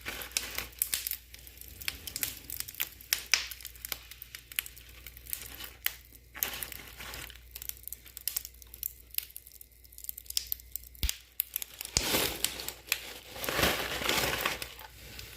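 Freshly microwaved pork rinds crackling and popping in their opened microwave bag, a scatter of sharp irregular clicks, with the bag crinkling as it is handled, heaviest near the end.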